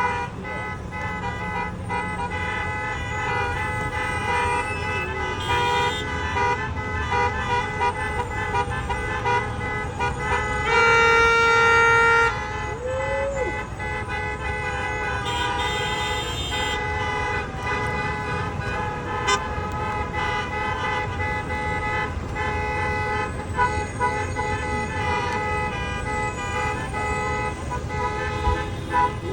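Bus horns honking almost without pause, several tones sounding together and breaking off and restarting in a rhythm. A single long, loud horn blast stands out about eleven seconds in.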